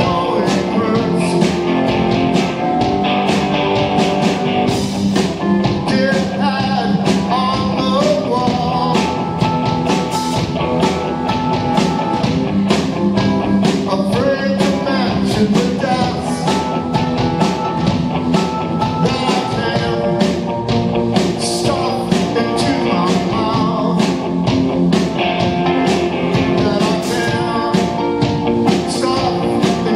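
Live rock band playing a mid-tempo song: electric guitar, drums with a steady beat and keyboards, with a man singing over them.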